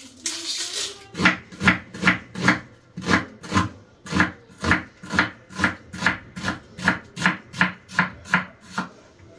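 Kitchen knife chopping an onion on a wooden cutting board: a steady run of strokes, about two and a half a second, starting about a second in after a brief rustle.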